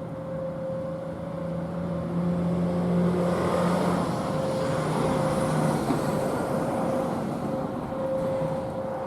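A road vehicle drives past, its engine and road noise swelling for a few seconds and then fading. Under it, distant Whelen Vortex outdoor warning sirens hold a steady alert tone.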